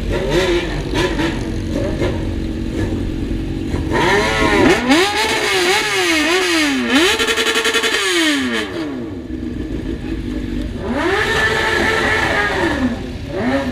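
Motorcycle engine running at a steady pitch, then revved up and down several times in quick succession about four seconds in, held high briefly and let fall; it is revved up, held and let down once more near the end.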